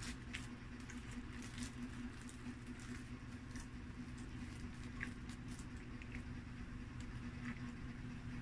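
Fingers handling a pizza slice on a paper liner in a cardboard box, tearing a piece off: scattered small crinkles and clicks. A steady low hum runs underneath.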